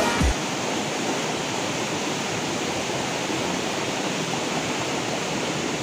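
Steady rush of a small rocky stream of running water.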